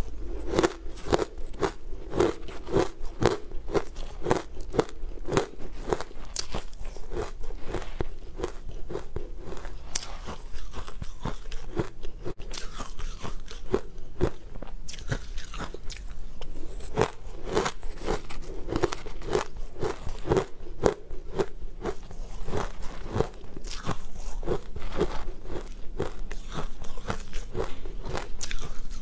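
Close-miked crunchy chewing: a mouthful of green, powder-coated chunks crunched between the teeth, with crackly snaps over a steady rhythm of about two chews a second.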